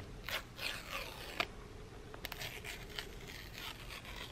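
Paper tear-off seal strips being pulled from an iPhone box: a few short ripping sounds in the first second and a half, then light clicks of fingers on the cardboard.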